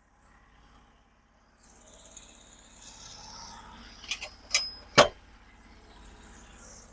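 A few sharp metallic clanks, the loudest about five seconds in with a short ring, amid softer scraping and handling noise.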